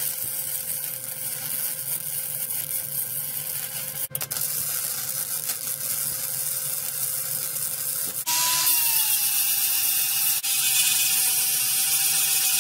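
Electric arc welding a steel flat-bar mount onto a mini bike's steel frame tube: a steady crackling sizzle, with a brief break about four seconds in. A little past halfway an angle grinder starts grinding the weld, louder, with a whine that settles slightly lower in pitch.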